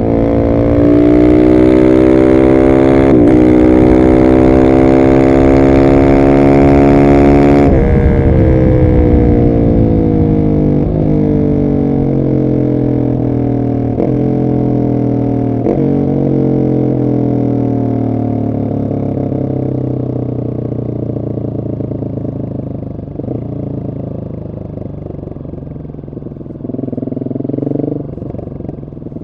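Husqvarna 701 SM's single-cylinder engine through a de-catted Arrow exhaust, at full throttle with the revs climbing and one upshift about three seconds in. The throttle shuts about eight seconds in, and the engine winds down on the overrun through several downshifts as the bike slows, with a brief blip of throttle near the end.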